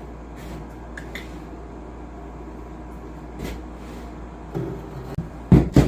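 Sheet-metal floor-patch piece being handled and knocked about during an attempt to bend it without a bender: a few light clicks, a short rattle, then two heavy knocks a fraction of a second apart near the end, over a steady low hum.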